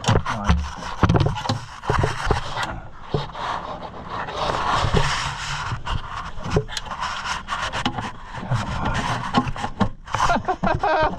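Throttle cable being pushed and tugged through a tight passage on a White 700 tractor: the cable housing rubbing and scraping, with irregular clicks and knocks as it is worked.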